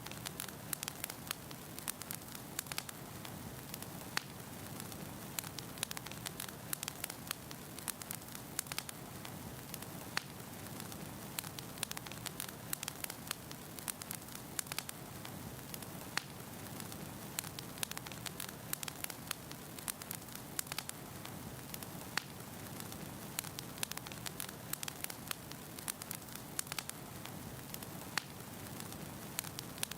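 Wood fire burning in a fireplace: a steady hiss with many irregular sharp crackles and pops from the logs.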